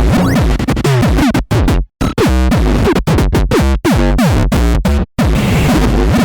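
Glitchy electronic music: synthesizer tones over a heavy drum-machine bass, with quick falling pitch sweeps, chopped by sudden brief dropouts to silence about two seconds in, around five seconds in, and near the end.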